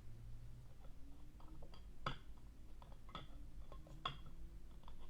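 Faint, scattered light clicks and taps from handling at a table, the sharpest about two, three and four seconds in, over a low steady hum.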